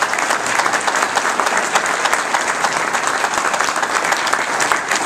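Loud applause from an audience, many people clapping at once.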